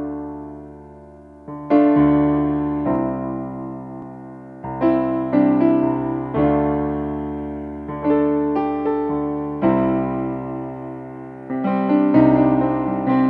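Yamaha electronic keyboard playing a slow solo piano intro: chords struck every second or two, each left to ring and fade before the next.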